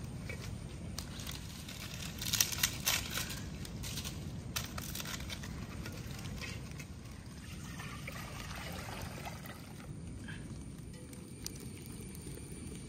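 Hands working in water inside a clay pot: soft pouring, trickling and sloshing, with a few sharp clicks and knocks against the pot about two to five seconds in.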